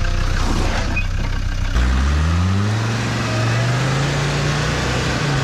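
Land Rover Defender's engine labouring on a steep, muddy climb: running steadily, then a little under two seconds in the revs rise over about a second and hold at a higher, steady pitch as it pulls.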